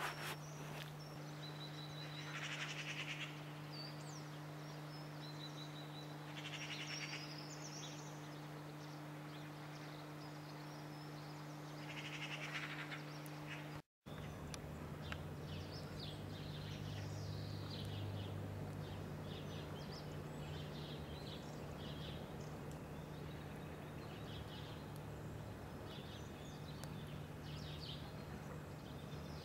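Small birds calling outdoors: a few trilled calls in the first half, then a run of short chirps, over a steady low hum. The sound drops out completely for a moment about halfway through.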